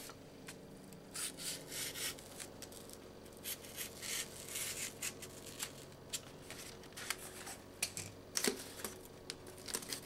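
Freshly sharpened pocket knife slicing through doubled-up corrugated cardboard: irregular short scraping, tearing strokes as the blade cuts easily and quickly. A faint steady hum lies underneath.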